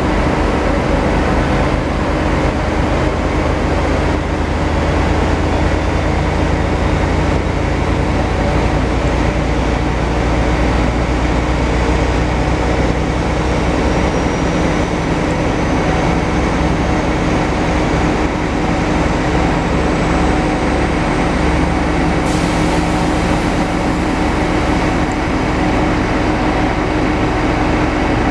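Class D445 diesel locomotive drawing a passenger train away, its engine running with a deep drone that weakens about halfway through, over a steady hum that carries on throughout.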